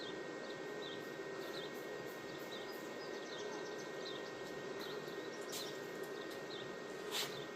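Quiet steady background noise with a low hum and faint short chirps repeating less than a second apart, and a single sharp click about seven seconds in.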